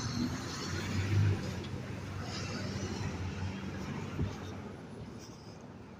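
Street traffic noise that fades away as a vehicle passes, with wind rumbling on the microphone.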